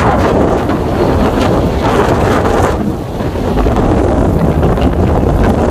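Loud wind buffeting on the microphone of a camera in a moving car, a heavy wavering rumble with road noise underneath.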